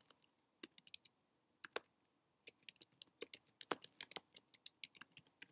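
Typing on a computer keyboard: quick runs of key clicks with short pauses between them, as words are typed out one after another.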